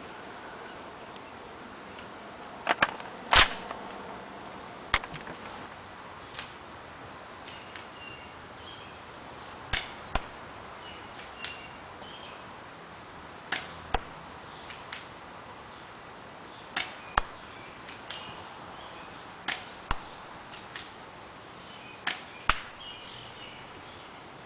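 Crosman Stinger P30 spring-powered airsoft pistol fired again and again, a sharp snap every few seconds, about eight shots in all. Most shots are followed about half a second later by a second, similar click.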